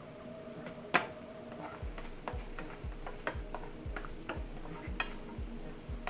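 A kitchen knife set down with a sharp clack about a second in, then a spatula stirring in a stainless steel skillet, knocking against the pan in a steady rhythm of about three light taps a second.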